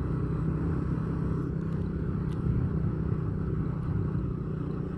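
Vehicle engine running steadily at cruising speed, heard from on board, with a constant low hum and road noise.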